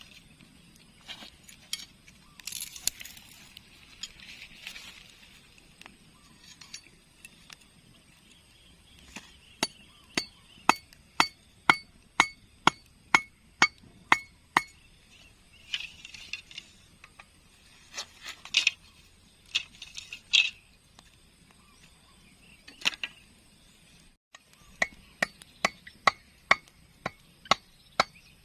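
Knife chopping on a cutting board: a run of sharp strikes, about two a second, each with a brief metallic ring, broken by a few short rustling scrapes.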